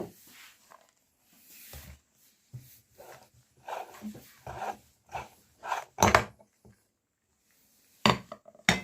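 Meat grinder being worked with milk chocolate: irregular scraping, rubbing and knocking strokes with short gaps between them. The loudest knocks come about six seconds in and again near the end.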